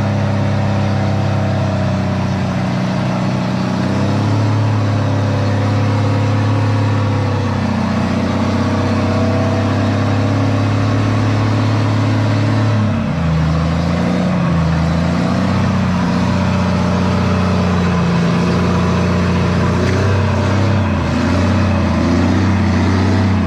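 An off-road 4x4's engine running loud and steady, its pitch shifting up and down a few times as the revs change.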